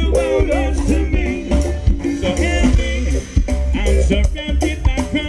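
Live ska band playing through outdoor PA speakers, a singer's voice over a steady bass line, drums and guitar.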